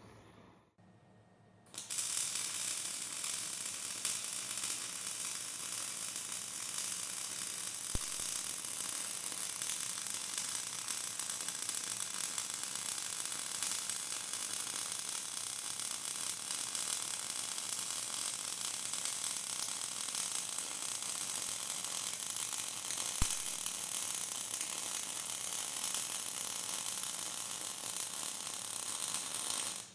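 Electric arc welding round a preheated end plate and shaft: a steady sizzling arc that starts about two seconds in, runs on unbroken, then cuts off suddenly.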